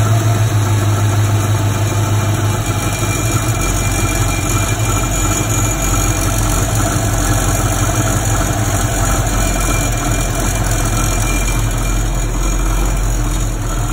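1987 Ford Mustang GT's 5.0-litre V8 idling steadily, with a rattle the owner hears coming from the top of the engine.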